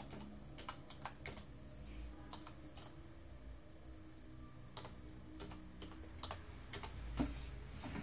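Faint, irregular clicks and taps over a low steady hum, with one sharper click about seven seconds in.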